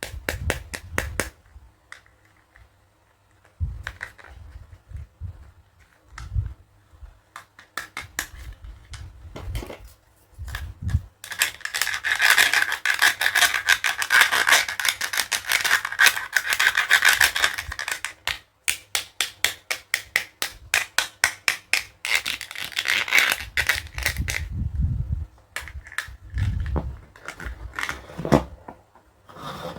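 Plastic toy dentist-kit pieces and packaging handled up close: sharp clicks and taps, a long stretch of dense scraping in the middle, then a quick run of regular clicks and some dull knocks.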